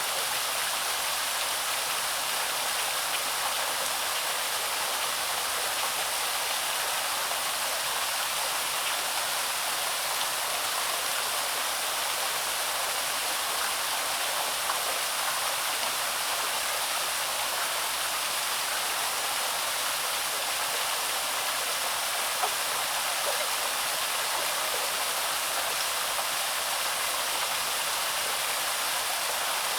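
Waterfall running steadily: a constant splashing hiss of falling water, mostly high and bright with little low rumble.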